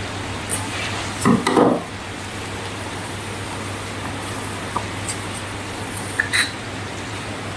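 Hand-made slime and a balloon being handled. Short bursts of squishing and crackling come about a second in and again near six seconds, over a steady hiss and low hum.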